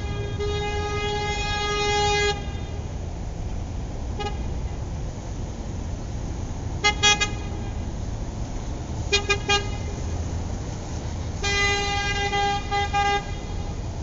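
Car horn honking in a series: one long blast of about two seconds, a single short beep, a quick double toot, a quick triple toot, then a long blast broken by two brief gaps near the end. A steady low rumble runs underneath.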